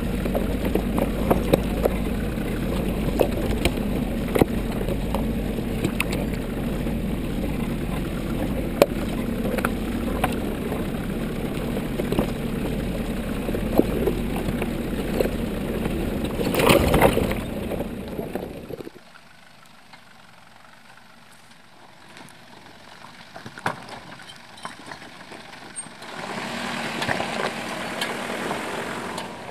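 Nissan Patrol 4x4 crawling over a rocky track: a steady engine drone with frequent cracks and knocks of the tyres on loose stones, louder for a moment about two-thirds of the way through. It then cuts off suddenly to a much quieter background, and a steady rushing sound comes in near the end.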